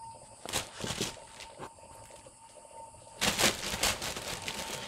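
Clear plastic bag crinkling and rustling as cats push through and paw at it. There are short bursts about half a second and one second in, and the loudest rustle comes a little after three seconds in.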